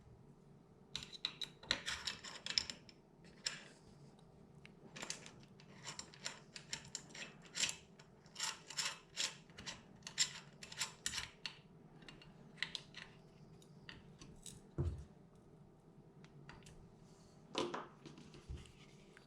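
A hex key turning a stainless steel screw into the aluminium mounting plate of a rifle cheek riser: a long run of small, irregular metal clicks and taps, quiet overall.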